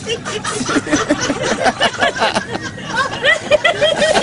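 Several people laughing together: overlapping giggles and chuckles in quick repeated 'ha-ha' pulses, mixed with a murmur of voices.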